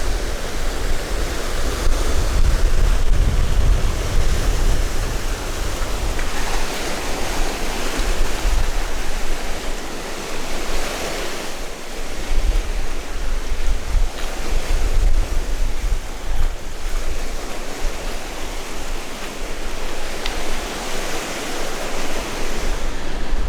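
Waves on a wind-whipped lake breaking on a sandy beach, swelling and fading every few seconds. Strong gusts of wind buffet the microphone with a deep rumble.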